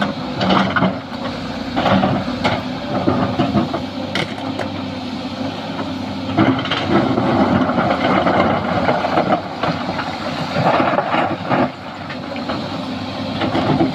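Sany SY215C hydraulic excavator at work: its diesel engine running steadily, with repeated sharp clanks and knocks from the machine as it handles the fill material.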